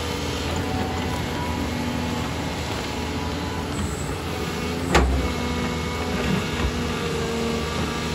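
Doosan excavator's diesel engine running steadily at a construction site, with a single sharp knock about five seconds in.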